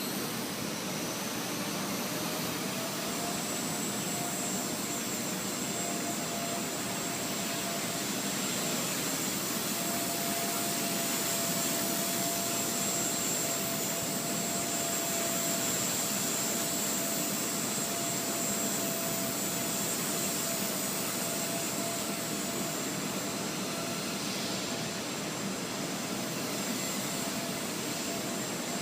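Blade 130 X micro RC helicopter in flight: a steady whirring of its electric motor and spinning rotors, with a high whine over it. The pitch rises a little about three seconds in, then holds.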